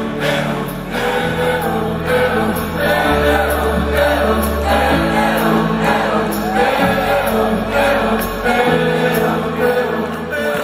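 Music with singing voices, choir-like, over held bass notes that change every couple of seconds.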